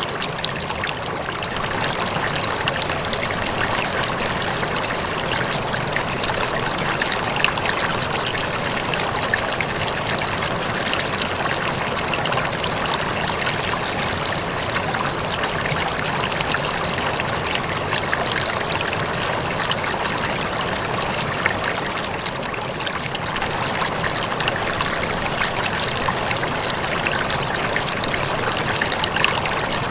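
Aquarium water trickling and splashing steadily, as from the tank's filter circulating the water, with a fine patter of small splashes.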